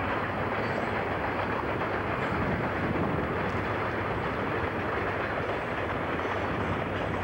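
CSX freight train rolling past, a steady noise of wheels on rail, heard through a consumer camcorder's microphone.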